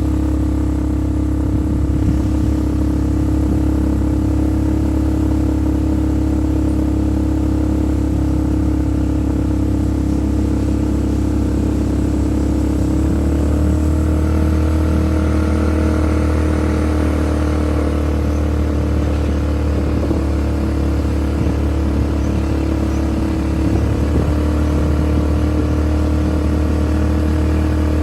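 Off-road vehicle engine running steadily under way. Its pitch changes in steps about 13 seconds in and again near 24 seconds.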